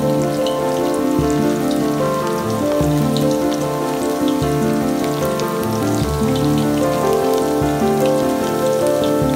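Raw banana slices deep-frying in hot oil, a dense bubbling crackle of fine pops, under background music with sustained notes.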